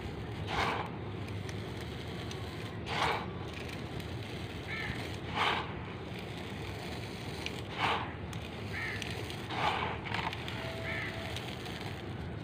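Crushed charcoal granules rustling and rattling as handfuls are scooped up and let fall back into a pan, about five times, every couple of seconds.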